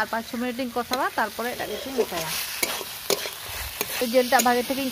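Chicken frying in spiced masala in a pan, sizzling as it is stirred, with a few sharp clicks from the spatula on the pan mid-way. A woman talks over it in the first half and again at the very end.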